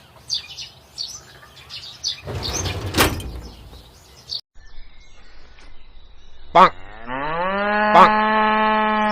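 A cow mooing: one long call that rises in pitch and then holds steady for about two seconds near the end. Before it come small bird chirps and a burst of rough noise, and two sharp clicks fall during the call.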